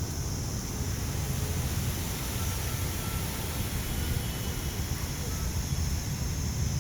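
Breeze buffeting the microphone, a steady low rumble that flutters unevenly, with a constant high hiss behind it.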